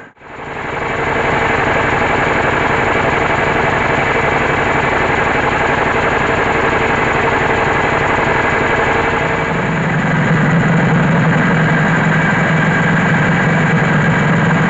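Mobile rice mill driven by a diesel engine, running steadily under milling load with the dense rattle of the hulling and polishing machinery. After a brief dropout at the very start, a lower hum grows stronger about ten seconds in.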